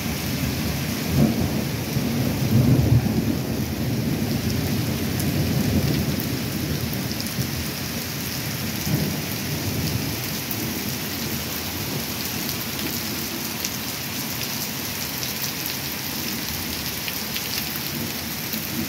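Thunder rumbling over steady rain, the rumble heaviest in the first few seconds and then easing off, leaving the rain.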